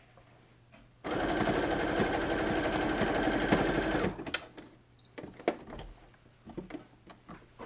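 Baby Lock sewing machine sewing a blind hem stitch through folded corduroy: it starts abruptly about a second in, runs at a fast, even stitching rhythm for about three seconds, then stops. Scattered light clicks and taps of fabric handling follow.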